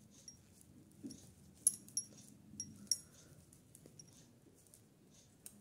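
Thin metal knitting needles clicking and clinking lightly against each other as stitches are knitted by hand: faint, irregular ticks, each with a short metallic ring.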